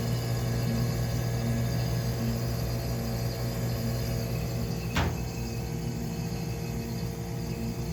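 General air dryer dehumidifier running, its compressor and fan giving a steady low electrical hum with a faint pulsing overtone. A single sharp click comes about five seconds in.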